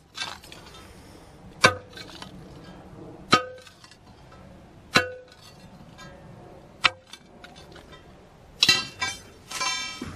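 Metal pry bar jabbed into a saw-cut concrete curb to break the pieces loose: five sharp clanks about every one and a half to two seconds, then two longer ringing, rattling scrapes near the end.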